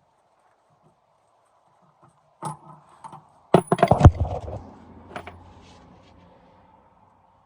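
Loose metal parts clinking and clattering: a single clink, then a quick run of sharp metallic clanks with a short ringing tail about three and a half seconds in, and one last clink.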